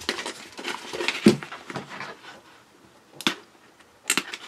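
Handling noise of a zippered planner folio being turned over and set against the desk: rustling with a few sharp taps and clicks, the loudest about a second in and others near the end.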